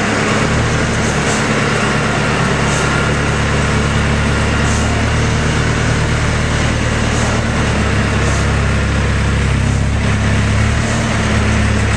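Forklift engine running steadily under load as it tows a fire ladder truck by a chain, its low hum shifting pitch in steps a few times.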